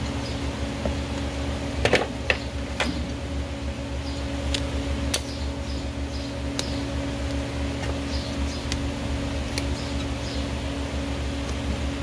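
A steel hoof knife scraping and paring packed dirt and dead sole from a horse's hoof, heard as scattered sharp scrapes and clicks, the strongest about two seconds in. A steady fan-like hum runs underneath.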